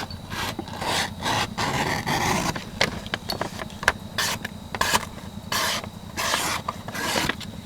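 The blade of a Microtech LUDT Gen III knife being drawn through material to test its sharpness: a series of short, irregularly spaced scraping cuts.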